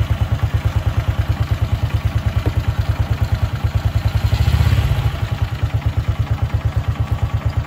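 Honda XRM110's small single-cylinder four-stroke engine idling with a quick, even pulse, growing briefly louder about four and a half seconds in. It idles with the headlight, park light and tail light switched on.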